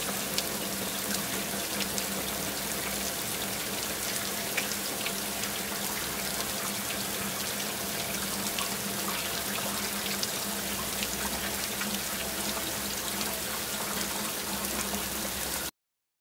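Steady rush of running water, with small splashes and drips, cutting off suddenly near the end.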